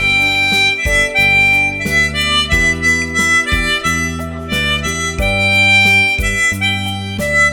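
Harmonica playing a melody in held notes over an accompaniment with a bass line and a steady beat.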